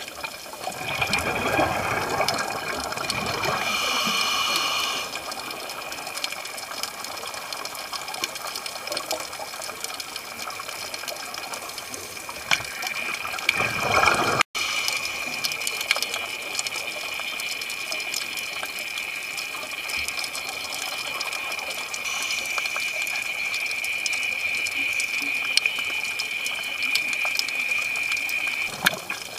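Underwater scuba-dive audio: rushing, gushing bubbles from a diver's regulator exhalations over a steady high whine, as picked up by a camera in an underwater housing. It swells louder twice, early and again just before a sudden break about halfway through.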